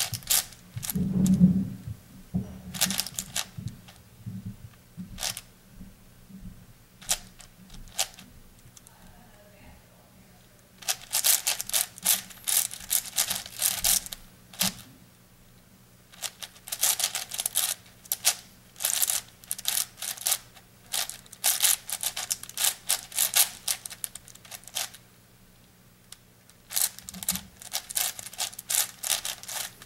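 Plastic clicking and clacking of an 8x8 puzzle cube's layers being turned by hand, in quick runs of turns broken by pauses of a few seconds. A faint steady low hum lies underneath.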